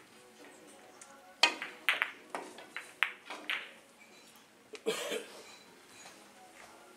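Three-cushion billiard shots. A sharp cue strike is followed by a quick run of clicks as the balls hit each other and the cushions, over about two seconds. A second, shorter cluster of clicks comes near five seconds in.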